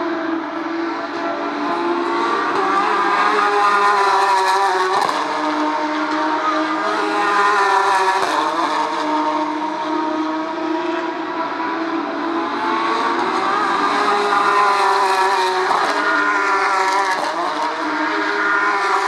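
Porsche 911 GT3 Cup race cars' flat-six engines at full throttle, the pitch climbing and then dropping at each gearshift, over and over, with more than one car running at once.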